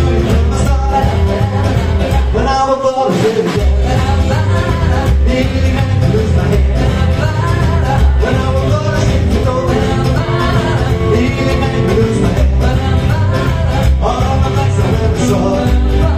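Live rock 'n' roll band playing with a steady beat and a singing voice. The drums and bass drop out for about a second, roughly three seconds in, then come back in.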